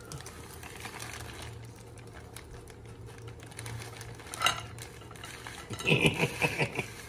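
Motorcycle drive chain being handled and worked over the rear sprocket: metal links rattling and clinking, with a sharp clink about four and a half seconds in and a quick run of clinks near the end, over a low steady hum.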